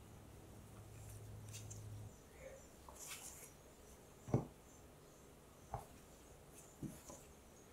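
Plastic dough scraper cutting enriched bread dough on a silicone baking mat: a faint scrape, then three soft taps about a second apart, the first the loudest. A low hum stops about two seconds in.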